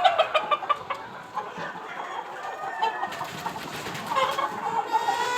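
Aseel chickens clucking: a fast run of short clucks in the first second, then a longer drawn-out call near the end.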